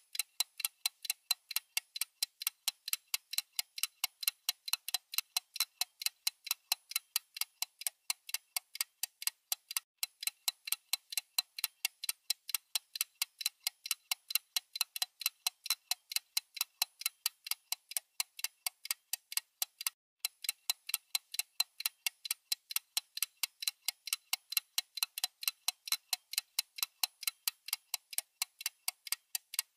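Clock-ticking sound effect: a fast, even run of sharp, high ticks, breaking off briefly about ten seconds in and again about twenty seconds in.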